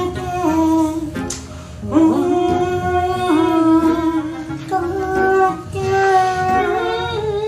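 A slow tune hummed in long held notes that slide from one to the next.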